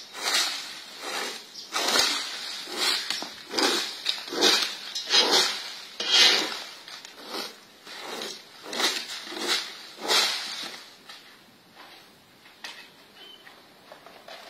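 Long-handled broom sweeping dry leaves across dirt and grass: rhythmic scratchy strokes, about one every three-quarters of a second, that stop near the end.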